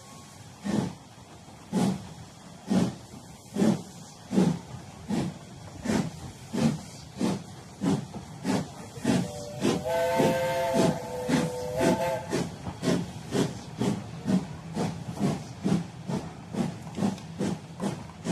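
Steam locomotive chuffing, its exhaust beats starting about a second apart and quickening to about three a second as it gathers speed. About ten seconds in, a multi-note chime whistle is blown once for about two seconds.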